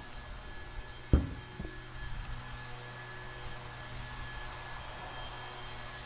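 A steady low hum with a faint high whine over it, broken about a second in by one sharp knock and a fainter one just after.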